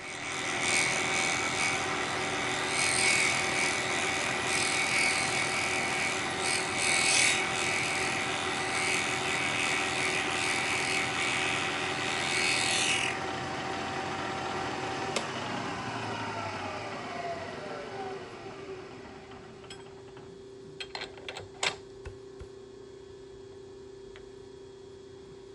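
Bridgeport milling machine with an end mill facing an aluminium block: a rough, loud cutting noise for about thirteen seconds, then the cut ends. The spindle winds down in a falling whine, leaving a steady hum and a few light metallic clicks near the end.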